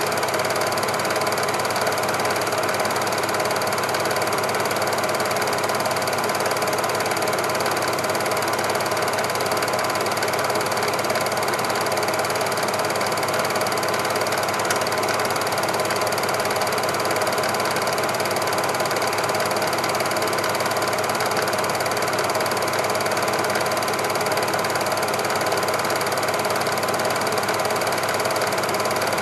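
A Super 8 film projector running: an even, unchanging mechanical whirr.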